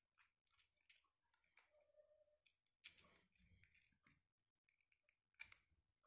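Faint clicks and short scrapes of wires being handled and worked into the screw terminals of a two-way light switch, the two strongest about three seconds in and near the end; otherwise near silence.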